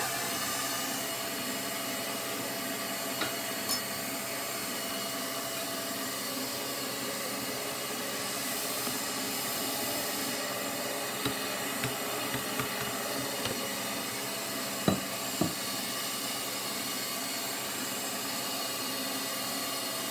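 1979 Kenwood Chef A901E stand mixer switched on at its lowest speed, its motor running with a steady whirr as the folding tool turns through thick cake batter. A few light knocks come partway through.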